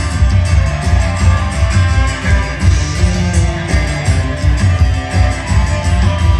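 Live band playing an instrumental passage in a rock style: strummed acoustic guitar with electric guitar and bass over a steady, driving beat.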